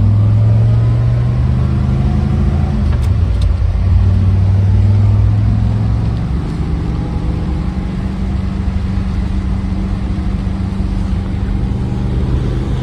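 Car engine running steadily, its pitch dropping slightly about three seconds in and again about six seconds in.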